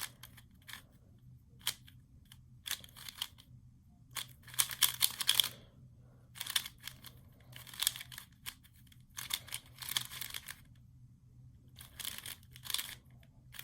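Plastic 3x3 speedcube being turned fast during a solve: quick runs of clicking, clacking turns broken by short pauses.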